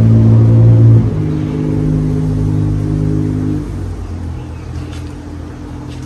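Casablanca Mercury ceiling fan running, its Samsung K55 motor giving a steady multi-tone hum. The hum drops abruptly about a second in, drops again a little past halfway, and then fades gradually.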